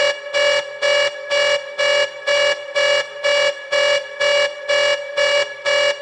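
High-pitched alarm made from a recorded buzzer shifted in pitch and tone, sounding in short, evenly repeating buzzy pulses about two a second at a steady pitch.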